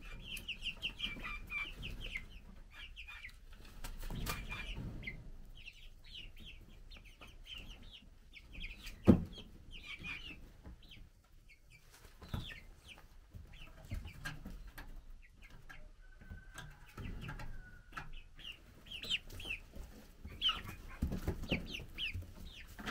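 Young chickens peeping and cheeping in quick runs of short, high calls, with one longer call a little past the middle. A single sharp knock about nine seconds in is the loudest sound, and a few softer thumps come later.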